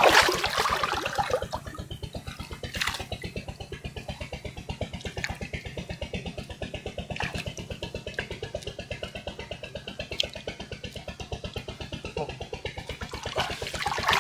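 A small engine running steadily with an even, fast putt-putt rhythm, with a few short sharp noises over it.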